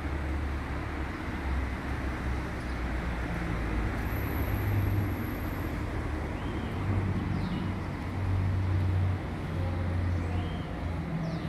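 Outdoor street ambience: a steady low rumble with a few faint, short chirps in the second half.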